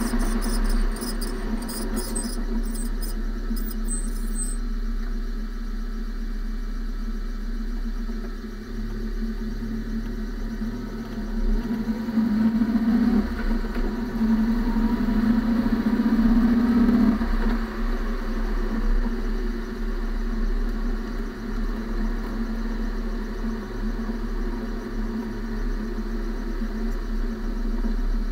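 Car driving, heard from inside the front wheel well: steady tyre and road noise. The hum swells louder for a few seconds around the middle.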